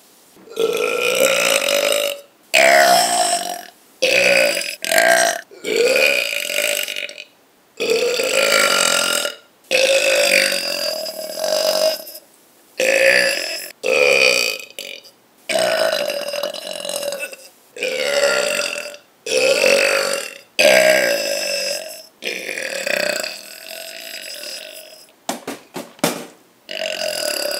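A person burping again and again: a long string of loud, drawn-out burps, about a second each with short pauses between, some sliding down in pitch.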